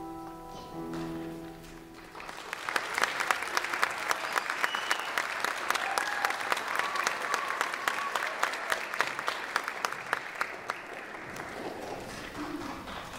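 The last held chord of a choir's song dies away, then the audience applauds: clapping starts about two seconds in and tapers off near the end.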